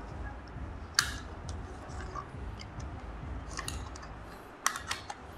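Plastic clicks and taps from an LF609 folding drone being handled as its arms are swung open: one sharp click about a second in, and a quick run of three clicks near the end.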